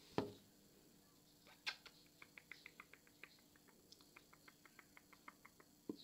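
Blue budgerigar perched on a hand making faint, quick clicking ticks, about five a second, from about a second and a half in until just before the end, after a soft thump at the start.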